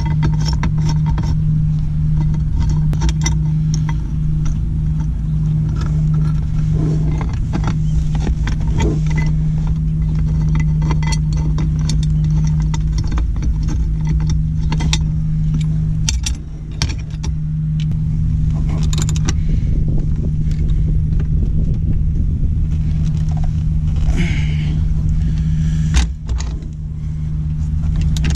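Ford one-ton dump truck's diesel engine idling steadily, heard inside the cab, with small metallic clinks of a lock washer and nut being threaded onto a bolt, and a sharper knock near the end.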